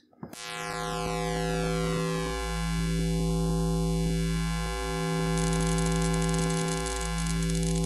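A sustained electronic synthesizer drone whose tone sweeps slowly up and down. About halfway through, a high crackling like electric sparks joins in.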